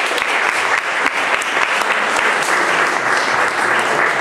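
Audience applauding steadily, a dense patter of many hands clapping, in thanks at the close of a talk.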